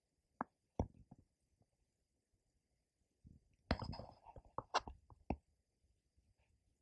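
Handling noise from a hand-moved camera: a few sharp clicks early on, then a cluster of clicks and rubbing about three and a half to five and a half seconds in.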